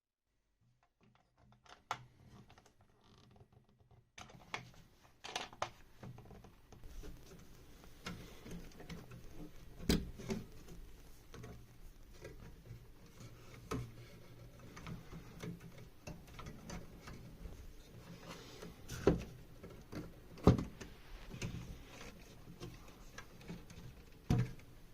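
Scattered clicks and knocks at irregular intervals over a low background, with single louder knocks about ten, nineteen and twenty seconds in.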